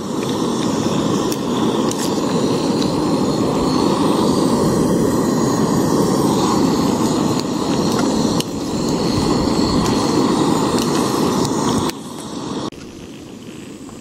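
Gas camping stove burner running steadily under a pot, a steady roar, with a few light clicks of a fork against the aluminium pot. The roar drops in level near the end.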